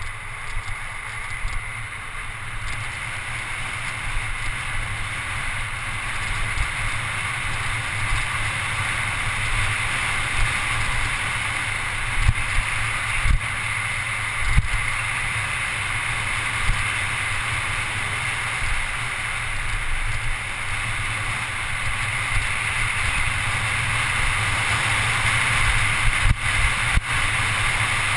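Wind rushing over a GoPro HD camera and mountain-bike tyres rolling fast on asphalt during a road descent, growing slightly louder, with a few sharp knocks from the bike over bumps.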